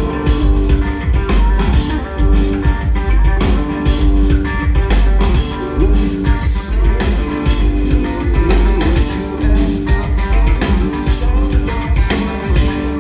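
Live band playing, electric guitar over drums keeping a steady beat.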